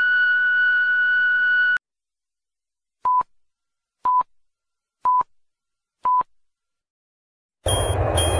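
Voicemail beep: one steady tone lasting just under two seconds. After a pause, four short, lower beeps, one a second, like a heart monitor's, and near the end a loud hiss of static starts.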